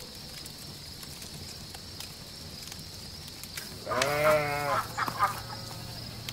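A sheep bleating: one long, wavering bleat about four seconds in, followed by a short weaker call a moment later.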